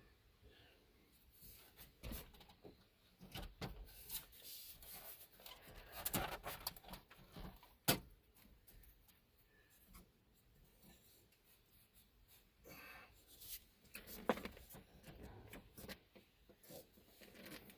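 Hands working the plastic parts of a double-DIN stereo install kit and its screws: scattered small clicks, taps and rubbing, with one sharp click about eight seconds in.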